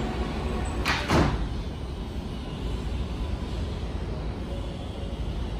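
Steady low rumble of an approaching L subway train, with one short sharp noise about a second in that is the loudest moment.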